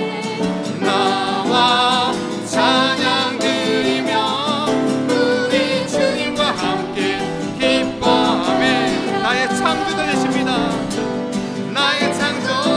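A man singing a Korean praise song while strumming an acoustic guitar.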